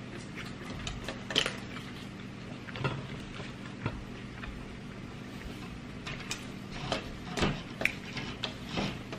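Close-up eating sounds: chewing and mouth clicks, with irregular crackles as a plastic-gloved hand tears food apart on a plate, over a steady low hum.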